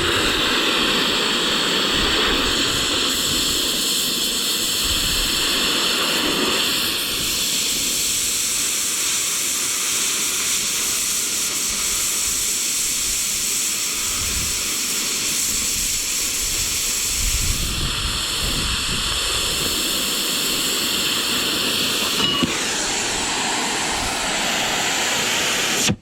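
Cutting torch hissing steadily through a freehand cut, then cutting off suddenly.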